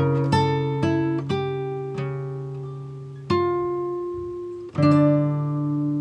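Background music on plucked acoustic guitar: notes and chords ring out and fade, with fresh chords struck at intervals of one to two seconds.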